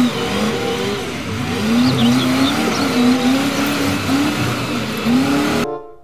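Large Caterpillar wheel loader's diesel engine running under load as it pushes a marble block, its pitch wavering up and down. A bird chirps faintly about two seconds in. The engine sound cuts off suddenly near the end and music begins.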